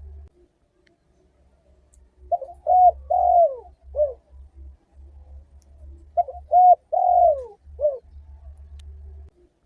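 Spotted dove (tekukur) cooing: two phrases of four notes each, a few seconds apart, the third note of each the longest and falling in pitch.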